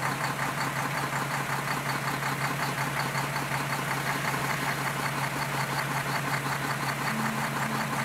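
Dump truck engine idling steadily.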